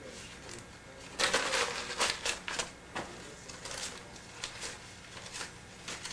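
Crinkling and rustling from small objects being handled, in a cluster of sharp crackles between about one and three seconds in, then fainter ones.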